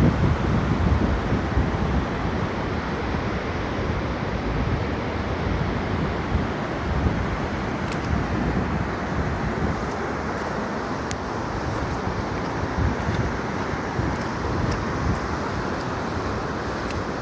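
Steady rushing of a waterfall, with wind buffeting the microphone in low rumbling gusts.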